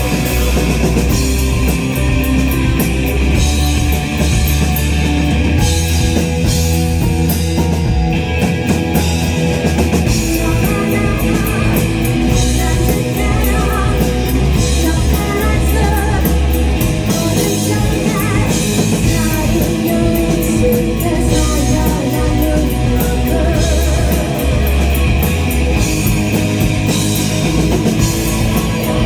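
Rock band playing live at full volume: drum kit, guitars and bass, with a singer's voice.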